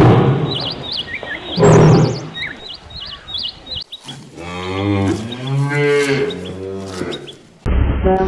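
A cow mooing: one long, drawn-out moo in the second half, rising and falling slightly in pitch before it cuts off. Before it come two short loud sounds, with small birds chirping over them.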